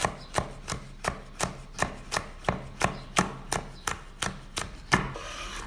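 Broad-bladed chef's knife chopping red peppers on a bamboo cutting board: quick, even strokes, about four to five a second, stopping about five seconds in.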